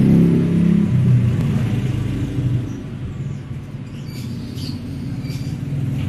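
A motor vehicle's engine rumbles low and steady, then fades away over the first two to three seconds. About four seconds in, a small bird gives several short, high chirps.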